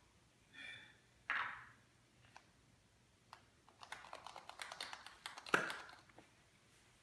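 Light, irregular clicking and crinkling of a plastic toy capsule and foil wrapper being handled, from a chocolate egg that has just been broken open, with one sharper knock about five and a half seconds in.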